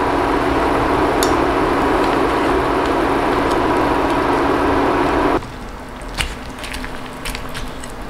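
Pot of broth boiling hard on an induction cooktop, with the cooktop's cooling fan humming steadily. About five seconds in, the hum and boiling noise drop away, leaving a few light clicks of chopsticks against the pot.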